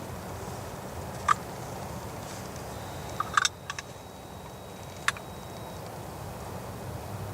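Wild turkey gobbling: short, sharp calls about a second in, a quick cluster around three and a half seconds and one more near five seconds, over a steady low rumble.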